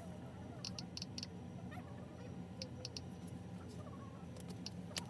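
Quiet indoor room tone: a steady low hum, with a few clusters of short, light clicks and faint distant voices.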